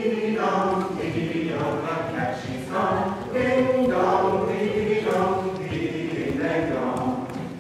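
A group of voices singing together in a simple chant-like tune, the notes changing every half second or so.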